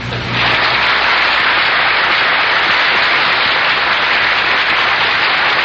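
Large audience applauding. The clapping starts suddenly just after the start and holds steady and dense throughout.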